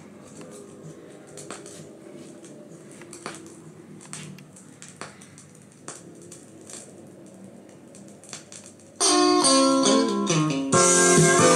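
A vinyl LP playing on a Turner 202 turntable through its amplifier and speakers. For about nine seconds the playback is quiet, with faint notes and the clicks and pops of the record surface. Then loud guitar music comes in and swells again a moment later.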